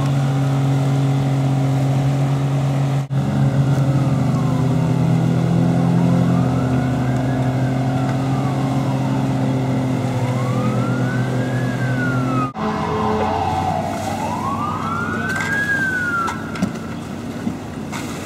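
Emergency vehicle siren wailing in slow rising and falling sweeps, over the steady drone of a boat motor. The drone stops about two-thirds of the way through.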